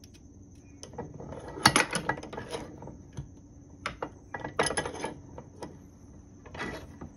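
Small steel parts clinking and scraping against the jaws of a steel bench vise, in three short clusters of clicks, as a SEVR broadhead blade is handled and set between the jaws.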